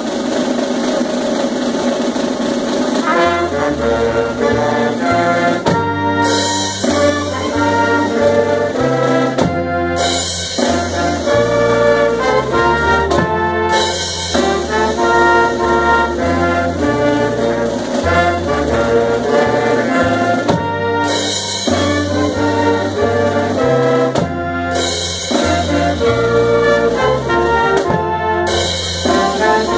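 A pep band of trumpets, trombones and saxophones playing an upbeat tune. It opens on a held chord, the bass line comes in about three seconds in, and the band stops briefly and together every few seconds.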